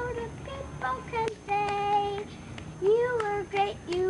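A young girl singing a tune in short held notes, with a longer steady note about a second and a half in and some notes that swoop up and back down in pitch.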